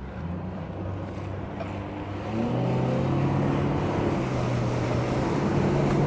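Outboard motor on a small inflatable tender speeding up, its pitch rising about two seconds in and then holding steady and louder as the boat gets on plane, with water rushing along the hull.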